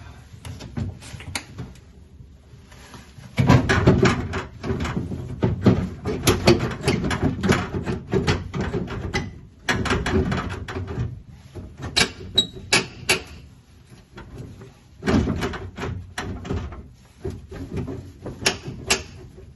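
Metal clunks, rattles and scraping from a 1967 Mustang door's vent window and glass being worked loose by hand, in bursts a few seconds long with sharp single clicks between.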